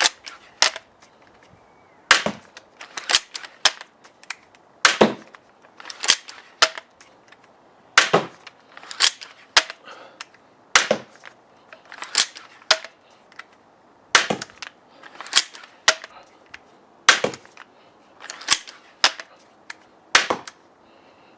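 EK Archery Cobra Adder pistol crossbow, fitted with its 7-shot V2 magazine, being shot as fast as possible: a string of sharp snaps, often in close pairs, about one a second, as it is cocked and fired over and over without a jam.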